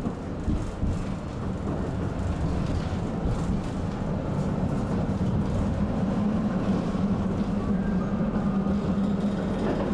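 Tram ride heard from inside the car: the tram rolls on its rails with a steady rumble as it leaves a stop. A motor hum grows stronger after about four seconds, and there are a couple of knocks in the first second.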